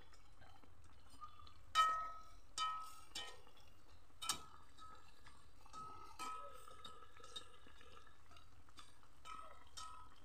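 Perforated metal skimmer knocking against the rim and sides of a metal wok while turning frying pitha, giving about seven sharp, ringing clinks at uneven intervals.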